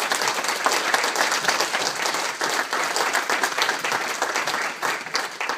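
Audience applauding: many hands clapping in a dense patter that starts to thin out near the end.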